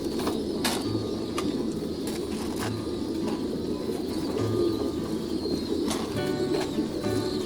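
Many domestic pigeons cooing together, a steady mass of overlapping low coos, with a few sharp clicks.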